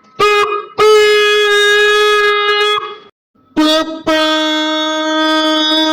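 A person imitating car horns with their voice: a short honk followed by a long, steady held honk, then after a brief pause another short honk and a long held honk at a lower pitch.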